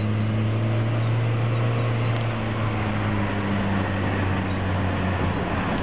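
The engine of an automatic car hums steadily as it drives up a wet, winding road, with the hiss of tyres on the wet surface, heard from inside the cabin.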